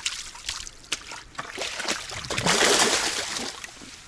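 Water splashing and trickling around a keepnet holding live carp. A few short knocks come first, and the splashing is loudest about halfway through.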